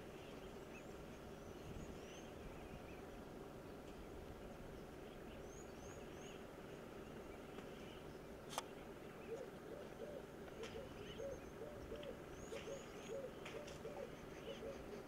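Quiet outdoor background with birds: a low hooting call repeats in short phrases through the second half, over scattered high chirps. One sharp click comes about halfway through.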